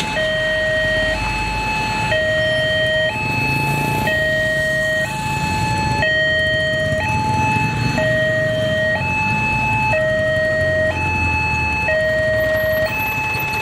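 Railway level-crossing electronic warning alarm sounding, a two-tone signal switching between a lower and a higher pitch about once a second, which means a train is approaching and the barriers are closing. Road traffic engines run underneath.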